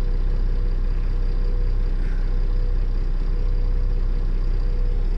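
Fire engine's engine idling steadily, heard from inside the cab as an even low rumble with a faint steady whine above it.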